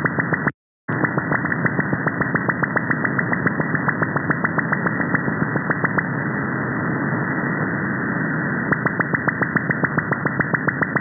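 Upper-sideband radio receiver hiss carrying a rapid, even train of clicks, several a second: pulses from an over-the-horizon radar, believed Australian, received on 39.010 MHz. The clicks stop about six seconds in, leaving plain hiss, and start again about nine seconds in as the radar steps down to 38.010 MHz. The audio drops out completely for a moment just after the start.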